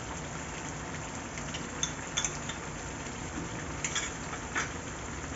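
Chicken curry gravy simmering in a pot with a steady bubbling hiss, while a spoon clinks against the pot a few times as ground almonds are added and stirred in.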